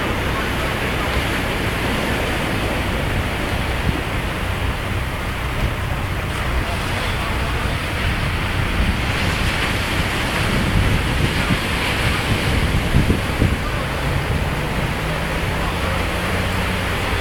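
Surf breaking and washing up the beach, with wind buffeting the microphone. A tractor engine running steadily underneath comes in faintly for the last few seconds.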